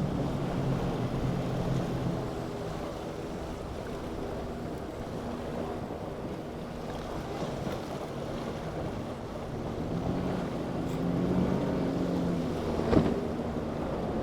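Powerboat engines running past, their drone fading after the first couple of seconds and swelling again later, over wind on the microphone and wash from the water. A sharp knock about 13 seconds in.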